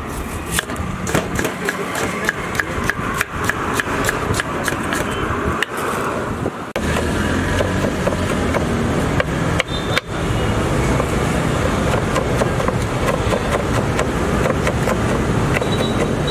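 Knife chopping on a wooden cutting board, quick knocks several a second as an onion is diced. About seven seconds in, a steady noisy background comes up and the knife knocks become sparse while green pepper is chopped.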